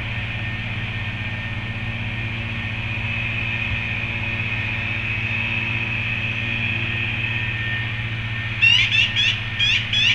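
A steady low hum with a fainter band of higher hiss above it. About three-quarters of the way through, music with plucked guitar notes comes in, louder than the hum.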